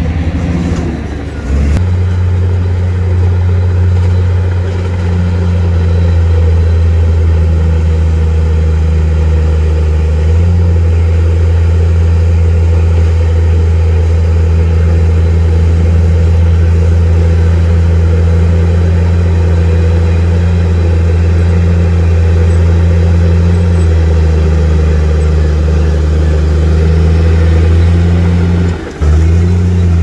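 Komatsu crawler bulldozer's diesel engine running hard as the dozer pushes a load of earth and rock, a steady low drone whose pitch shifts a few times as the load changes.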